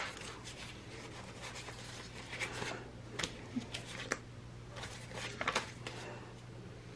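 Soft rustling and light taps of paper and sticker sheets being handled on a planner, with a low steady hum underneath.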